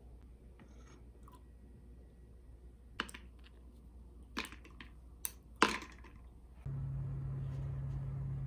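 Four sharp clinks of ice cubes dropping into a ceramic mug of iced latte, the last the loudest. Near the end a steady low hum comes in.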